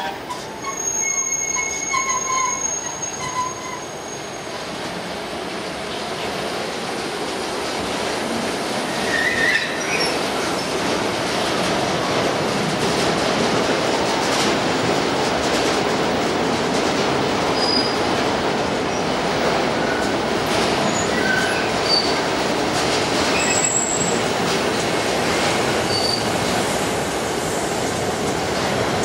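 Long freight train of car-carrier wagons rolling past: a steady rumble and rattle of wheels on the rails, building over the first several seconds and then holding. A few brief, high wheel squeals are scattered through it.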